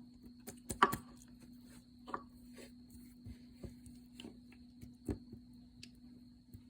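Slime being squished and poked by hand, giving irregular small clicks and pops, over a steady low electrical hum.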